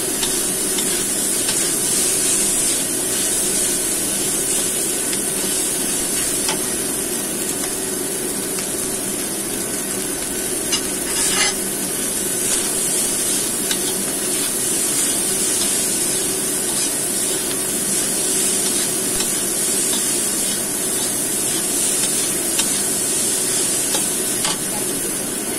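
Fried rice sizzling in a wok while a metal spatula stirs and scrapes it: a steady frying hiss with scattered light scrapes and taps, and one sharper knock of the spatula near the middle.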